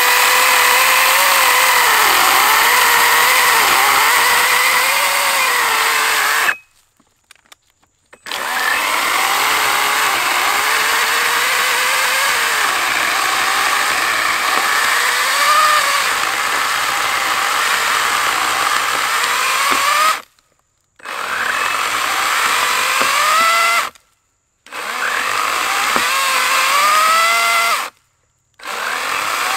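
Wild Badger Power 40-volt battery chainsaw cutting through a 12- to 14-inch log, its electric motor whine dipping and recovering in pitch as the chain bites into the wood. The saw cuts out abruptly four times and starts again within a second or two.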